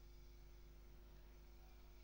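Near silence: a faint steady low hum with no distinct events.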